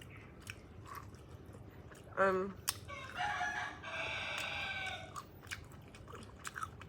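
A rooster crows once: a short, wavering first part about two seconds in, then a long, drawn-out held note. Faint clicks of chewing are heard around it.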